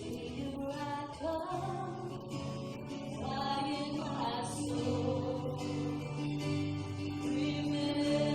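Worship music: voices singing over guitar and sustained instrumental chords.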